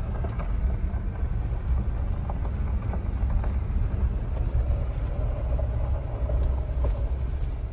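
Truck driving slowly on a gravel road, heard from inside the cab: a steady low rumble of engine and tyres with faint crunching ticks from the gravel.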